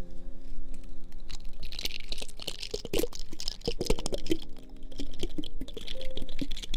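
Rapid irregular tapping and clicking ASMR trigger sounds, with some soft rustling, over quiet background music.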